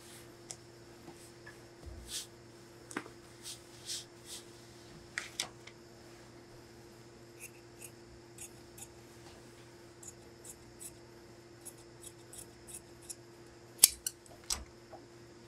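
Large tailor's shears snipping through coat fabric in a series of short, sharp cuts while the armhole is trimmed, the loudest snip near the end.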